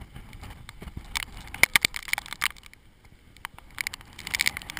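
Footsteps crunching on wet gravel: two bursts of sharp crunches, about a second in and again near the end.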